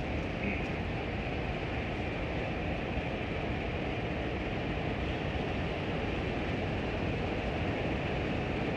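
Two 44 class diesel-electric locomotives running as they roll slowly along the track, a steady low engine sound that grows slightly louder near the end as they draw closer.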